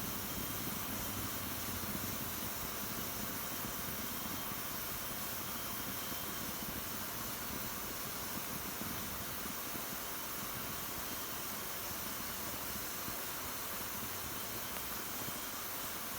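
Wood fire burning in a fireplace: a steady hiss of flames with only occasional faint crackles.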